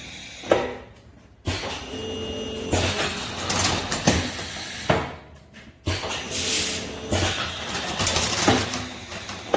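Pipe-bending machine working through two bending cycles: it runs for a few seconds, pauses briefly, then runs again, with sharp mechanical clunks during and at the end of each run.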